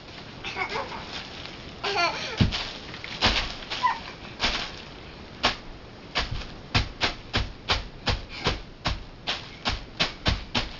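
Bubble wrap being pressed and popped, a series of sharp pops that come about three a second in the second half, with a small child's short vocal sounds in the first half.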